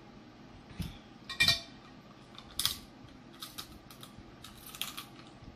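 A run of sharp clicks and crackles as a crab claw is picked apart with a small metal fork and bitten into, with one louder, briefly ringing clink of metal on glass about a second and a half in.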